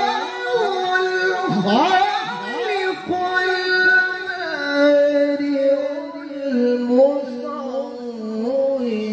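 A male qari's melodic Quran recitation, sung into a microphone. Quick swooping ornaments in the first few seconds give way to a long held note with a wavering vibrato.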